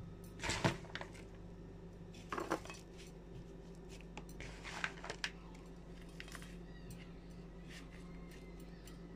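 Croissant pieces placed and pressed by hand into a round aluminium baking dish: a few scattered light rustles and taps against the pan, over a faint steady hum.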